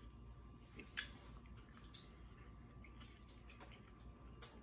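Near silence with a few faint wet clicks, clearest about a second in and near the end: quiet mouth and hand sounds of people eating eggs and bacon.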